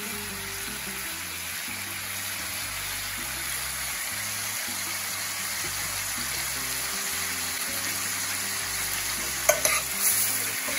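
Chicken breasts and sliced mushrooms sizzling steadily in broth in a stainless-steel skillet. Near the end, metal tongs clack a couple of times against the pan as the mushrooms are stirred in.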